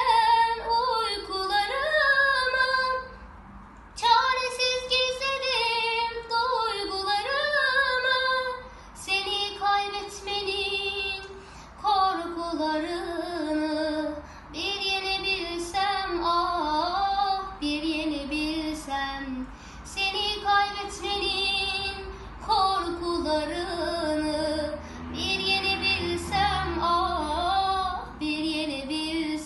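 A girl singing a Turkish pop song solo and unaccompanied, in phrases a few seconds long with brief breaths between them.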